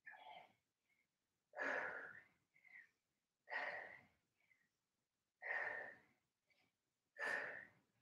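A woman breathing out hard, about once every two seconds, five times, with short faint breaths in between: exertion breaths while curling dumbbells in a wall sit.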